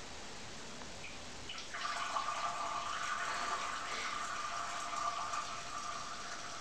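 Cat urinating into a toilet bowl: a steady trickle of liquid into water that starts about two seconds in.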